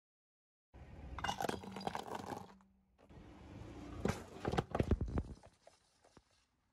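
Car tyre rolling over full aluminium soda cans on asphalt, crushing them with crunching and sharp cracks as they burst and spray foaming soda. Two bouts of crushing with a short break between, the loudest cracks about four to five seconds in, then faint crackling as it dies away.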